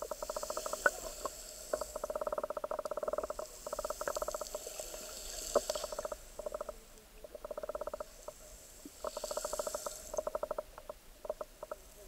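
Underwater sound in shallow seawater over a pebble bottom: repeated runs of rapid clicking and crackling a second or two long, with a hiss of water that swells and fades every few seconds.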